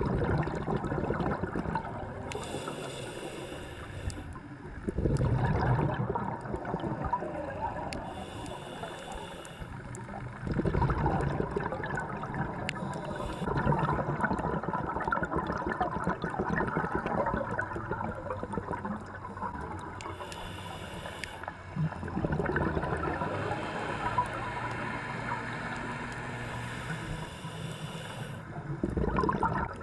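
Scuba diver breathing through a regulator underwater: an inhaled hiss followed by a louder rush of exhaled bubbles, about once every six seconds.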